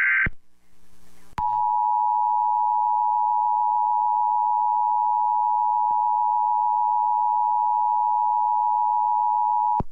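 Emergency Alert System broadcast tones. First the tail of a SAME digital header burst, then, after about a second's gap, the two-tone attention signal: a steady dual tone held for about eight seconds that cuts off abruptly. It announces a National Weather Service severe thunderstorm warning.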